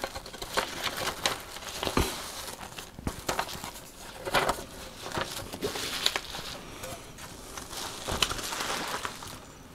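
Anti-static packaging bag crinkling and rustling as it is handled, with scattered small ticks and taps.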